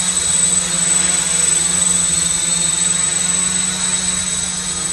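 Small quadrotor's propellers and motors buzzing steadily in flight, a constant hum with a thin high-pitched whine above it.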